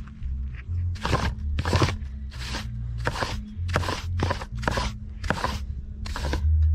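Background music with a low, pulsing bass, over a regular run of short scraping strokes, about one every two-thirds of a second, from hand tool work on the roof.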